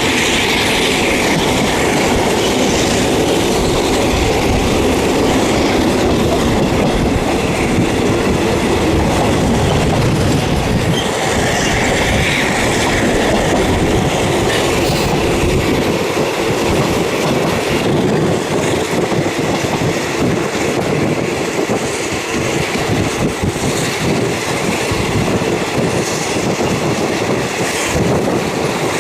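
Thai third-class passenger train running along the track, heard through the carriage's open windows: a steady rumble with wheels clattering over the rail joints, and a couple of brief wheel squeals.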